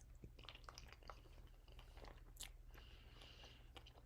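Faint mouth sounds of someone chewing a mouthful of microwave mac and cheese: soft, scattered little clicks and smacks over a low steady hum.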